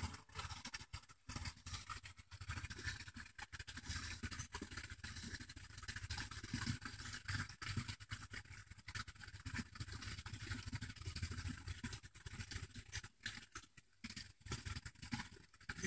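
Faint, irregular scratching and rubbing, with many small clicks and an uneven low rumble underneath.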